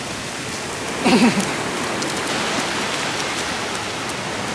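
Steady rush of ocean surf washing in at the shoreline, with a short voice sound about a second in.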